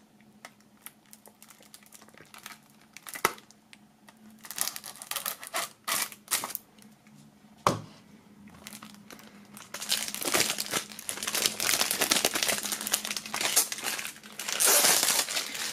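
Plastic shrink-wrap being slit with a knife and peeled off a CD jewel case, crinkling and tearing. Scattered scrapes and clicks at first, then dense crinkling from about two-thirds of the way in, loudest near the end.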